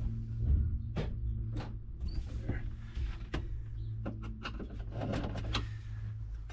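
Scattered small clicks and taps of screws and a plastic dash control panel being handled and fitted, over the steady low hum of the van's engine idling.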